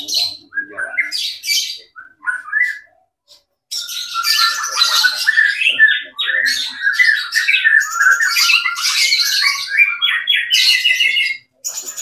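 White-rumped shama (murai batu) singing. A few short calls come first, then from about four seconds in a loud, continuous, varied song full of fast trills that stops just before the end.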